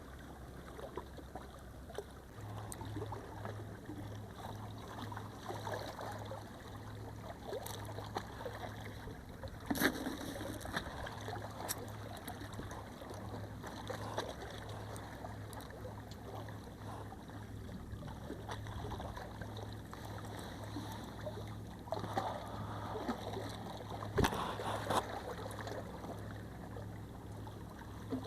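Sea water washing and lapping against the breakwater rocks, with a few sharp knocks about ten seconds in and again near the end.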